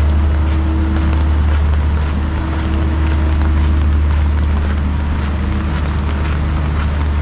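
Steady low hum of a generator running, with rain falling in a fine hiss over it.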